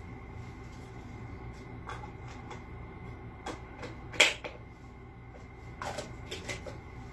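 Hands handling food and objects at close range: a few soft rustles and short clicks, with one sharp click about four seconds in and a small cluster of clicks near six seconds, over a steady low room hum.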